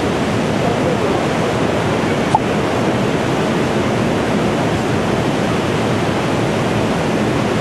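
Tsunami floodwater rushing, a loud, steady noise of churning water, with a short click about two and a half seconds in.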